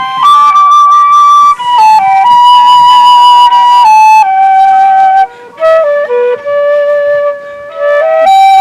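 Solo flute playing an unhurried melody of held notes, with short pauses between phrases.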